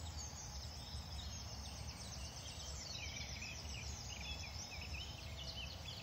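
Songbirds singing in a dawn chorus: many short, quick chirping and twittering calls from several birds at once, with a low steady rumble underneath.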